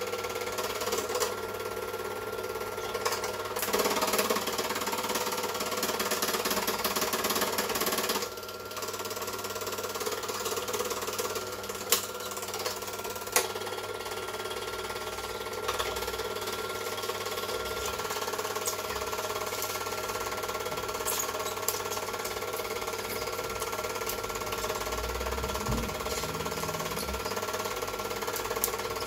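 Super 8 film projector running: a steady motor whir with the chatter of the film transport. Two sharp clicks come a little under halfway through.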